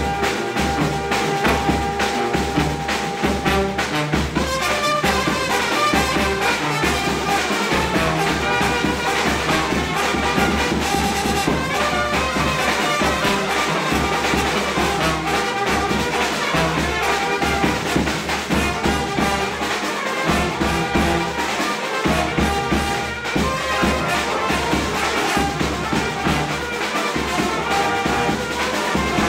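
Serbian brass band (trubači) playing: trumpets carrying a lively melody over a steady low beat.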